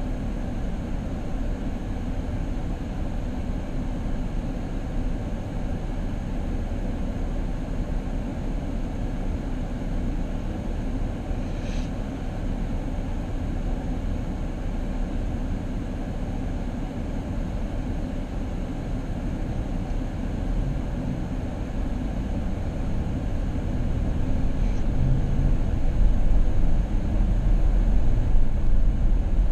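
Steady road noise of a car driving: a low rumble of tyres and engine that grows louder over the last several seconds, with a faint click about twelve seconds in.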